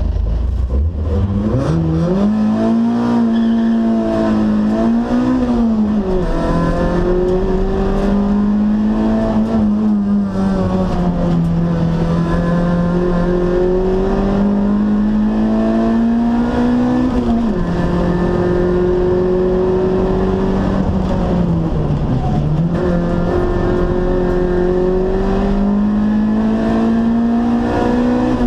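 Toyota Corolla AE92 race car's four-cylinder engine, heard from inside the cabin, pulling hard at high revs during a hillclimb run. Its pitch rises and falls with gear changes and corners: it drops sharply about two-thirds of the way through, dips deep a few seconds later, then climbs again.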